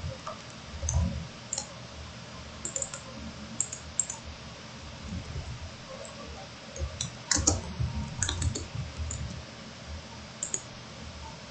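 Computer keyboard keystrokes and mouse clicks, coming irregularly while a file name is typed, with a quick flurry of keystrokes about seven to eight seconds in.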